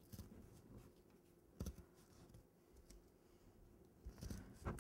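Faint snips of scissors cutting through a cake board, one about one and a half seconds in and a few more near the end, with near silence between.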